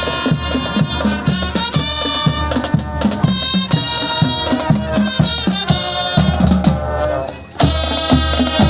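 Marching drum band playing: brass horns carrying the melody over a steady beat of snare and bass drums, with a brief drop in the music about seven and a half seconds in.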